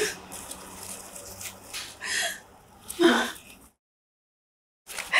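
A woman sniffling and sobbing quietly in short breaths, then total silence for about a second near the end.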